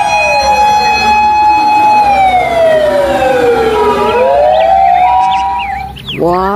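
Fire truck siren wailing, with layered tones: one holds steady while another slides down in pitch and climbs back up about four seconds in. The siren fades out near the end.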